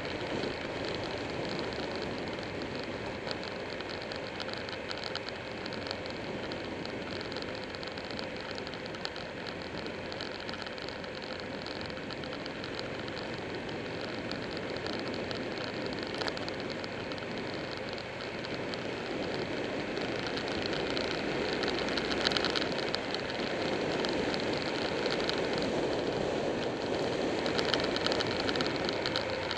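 Motorcycle riding at road speed: steady rushing wind on the bike-mounted microphone over engine and road noise, growing louder over the last third.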